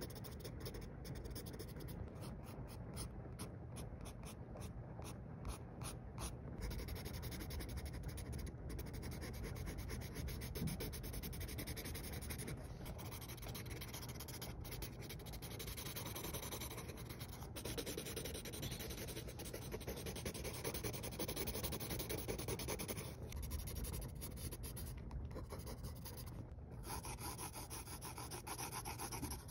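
Graphite pencil scratching on textured drawing paper, laying down quick back-and-forth hatching strokes and longer sweeping lines without pause.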